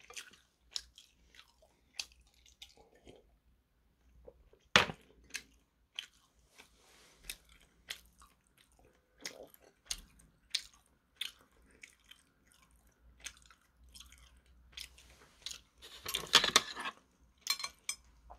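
A person chewing pan-fried dumplings close to the microphone: irregular wet clicks and smacks of the mouth, with a denser, louder run of crunching about sixteen seconds in.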